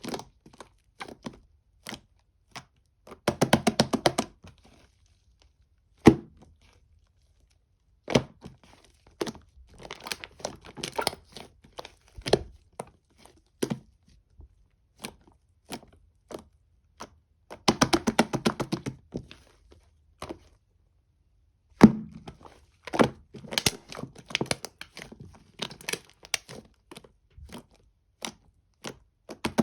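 Foam slime being pressed and squished by hand, giving sharp pops and crackles. There are two dense runs of rapid crackling, about three seconds in and again past the middle.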